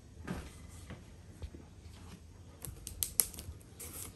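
Cardboard box being opened by hand: scattered light clicks, scrapes and rustles of the cardboard, with a cluster of sharper clicks about two and a half to three seconds in.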